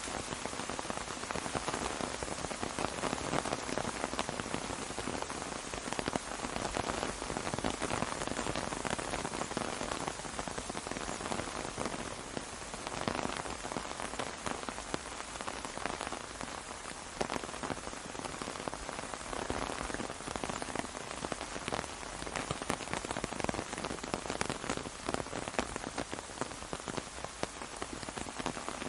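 Steady rain falling on an umbrella: a dense hiss of many individual drop ticks, swelling and easing slightly in intensity.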